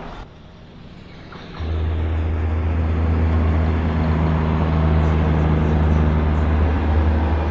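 A large engine running steadily with a low, even hum, coming in suddenly about a second and a half in after a quieter stretch.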